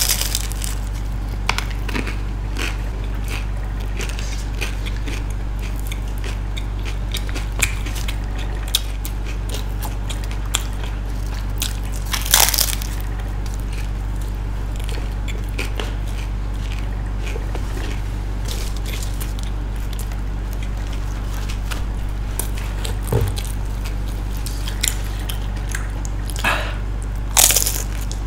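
Close-up eating sounds of two people biting and chewing pizza topped with crisp potato chips: scattered crunches, with louder bites about twelve seconds in and near the end, over a steady low hum.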